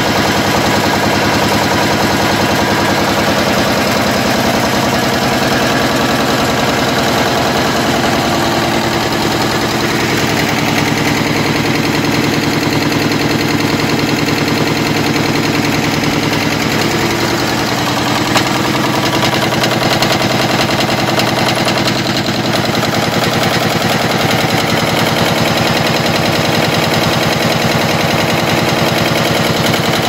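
Devson 25-ton H-frame high-speed power press running continuously while stamping terminal lugs from strip: a rapid, steady clatter of press strokes over the steady hum of the machine's drive.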